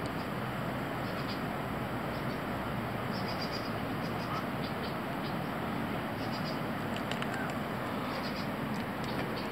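Steady background hiss with faint, scattered bird chirps.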